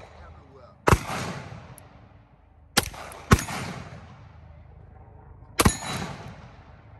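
Gold-plated semi-automatic pistol fired four times at an unsteady pace, the middle two shots about half a second apart. Each shot trails off in echo.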